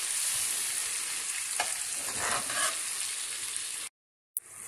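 Onions, tomatoes and spices sizzling in hot oil in a frying pan as they are stirred with a metal spoon, with a few louder stirring strokes about halfway through. The sound cuts out for a moment near the end, then the sizzling goes on a little quieter.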